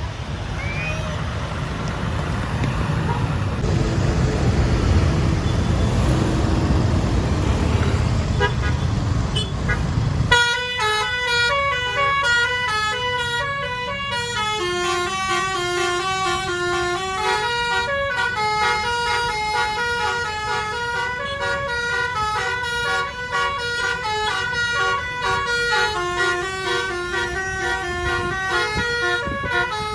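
Loud bus engine and road noise for about ten seconds. Then a basuri (telolet) multi-tone musical bus horn starts up and plays a long melody of quick stepped notes that runs on to the end.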